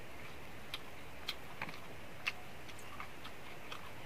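Eating sounds as fried fish is picked apart by hand and chewed: about seven small, sharp clicks scattered irregularly over a steady background hiss.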